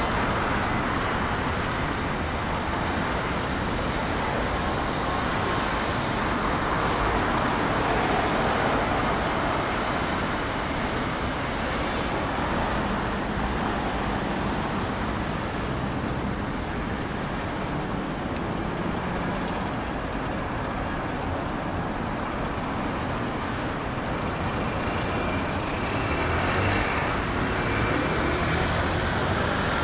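Steady city road traffic noise: a continuous wash of cars and other motor vehicles passing, swelling slightly a few times as nearer vehicles go by.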